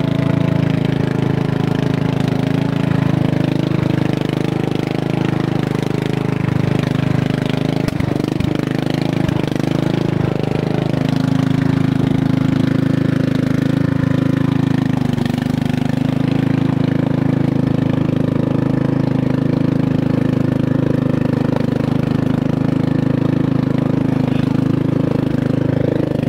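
12 hp Briggs & Stratton single-cylinder engine on a garden tractor, running steadily through an open exhaust manifold with no muffler.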